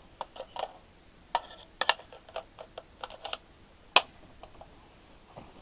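Irregular sharp metallic clicks and clacks of an AR-15-pattern rifle and its magazine being handled during loading, the loudest a single clack about four seconds in.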